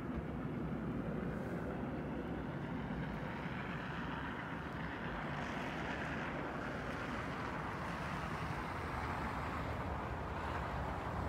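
Steady road traffic noise: a low rumble with tyre noise swelling as cars pass, once about halfway through and again near the end.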